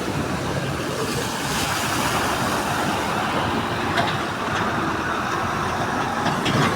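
Steady road traffic noise, with a short sharp knock about four seconds in and another near the end.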